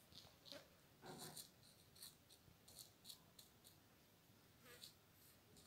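Faint, irregular light ticks and rustles of fingers sprinkling and pressing dry tea leaves onto glued paper.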